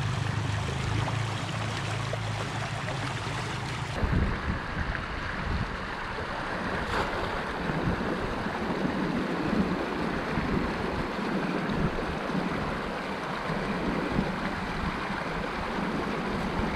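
Shallow rocky stream running, with wind buffeting the microphone in gusts, stronger after about four seconds in.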